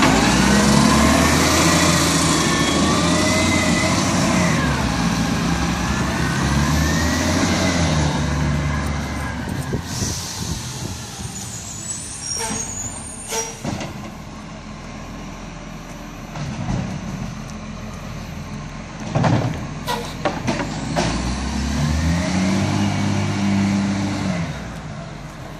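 Side-loader garbage truck's diesel engine revving up and down as its bin-lifting arm works, then pulling away and fading. A few short sharp sounds come in the middle, and the engine revs up and down again, fainter, near the end.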